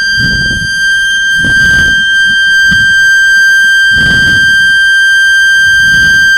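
A loud, steady, high-pitched electronic tone held on one note, with low rumbling bumps every second or so underneath.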